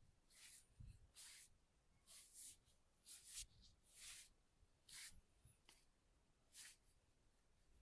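Faint hands rubbing and stroking during a massage: a series of soft, high swishing strokes, roughly one a second.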